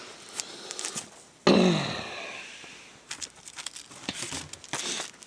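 Comic books being handled, with paper and plastic crinkling and rustling; about a second and a half in, a sudden loud vocal outburst from the man falls in pitch and fades over about a second, before the crinkling picks up again.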